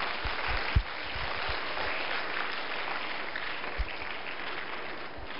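Audience applauding steadily, a crowd of people clapping.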